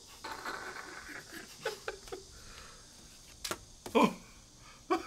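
Playing cards being laid down on a wooden tabletop: two sharp clicks a little past halfway, among low voices and a short vocal sound about four seconds in.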